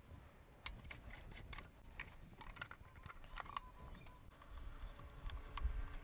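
Faint, scattered clicks and taps of a plastic distributor cap being handled and fitted back onto the distributor by gloved hands, with a duller knock about five and a half seconds in.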